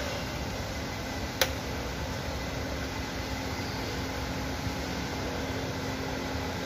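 Steady hum of workshop background noise, like ventilation fans, with one sharp click about a second and a half in as the mechanic works by hand inside the wheel arch.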